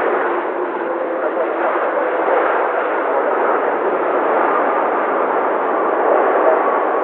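Loud, steady jet engine noise from a landing Airbus A330-300 with Rolls-Royce Trent 700 engines: an even rush with faint whining tones in it.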